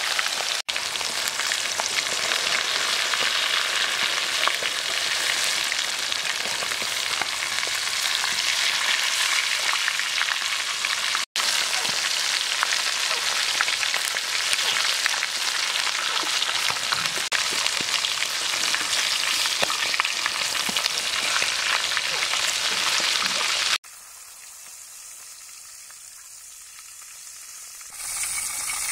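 Whole spice-coated chicken deep-frying in hot oil in a karahi: a dense, steady sizzle and crackle. It is broken by two brief drop-outs and turns much quieter for a few seconds near the end.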